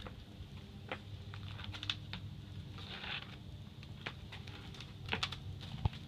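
Paint roller being worked in a roller tray of paver sealer: a short wet crackling hiss about three seconds in and scattered light clicks of the pole and tray, over a low steady hum.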